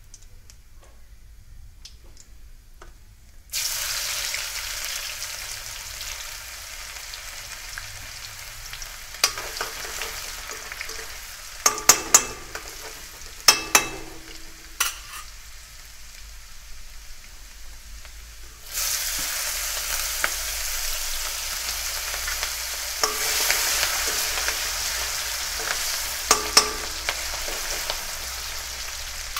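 Hot oil in an aluminium kadai sizzling loudly as a yellow ground-spice mixture is dropped in a few seconds in. Sharp metal clinks and taps of a spoon against the pan follow. A little past halfway the sizzling jumps loud again and goes on under spoon stirring.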